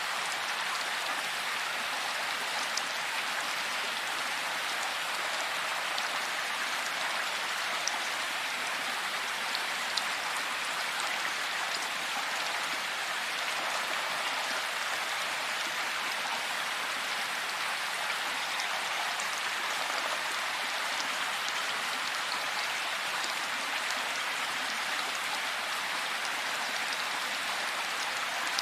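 Steady heavy rain falling, an even hiss with occasional sharper drip ticks.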